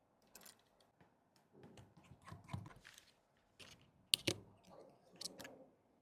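Faint scattered scraping, tapping and clicking of small tools and parts being handled during a phone repair, with one sharp click a little past four seconds in.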